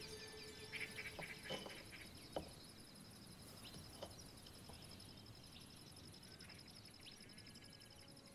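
Faint, steady insect chirring with a rapid pulse to it, and a few soft taps and clicks in the first two and a half seconds.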